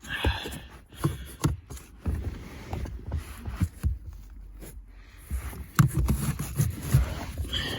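Irregular plastic knocks, clicks and scrapes as a new charcoal cabin filter is worked into its housing under the dash of a W220 Mercedes S-Class, with some low thumps.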